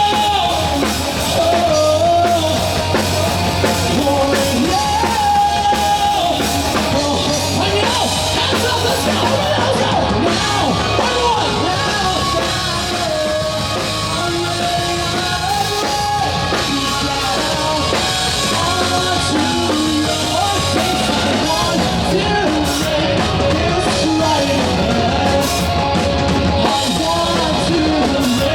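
Live rock band playing, with a singer's voice over drum kit and amplified instruments.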